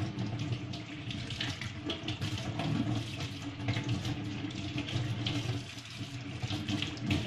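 Kitchen tap running steadily, the stream splashing over raw snake meat as it is rinsed by hand in the sink.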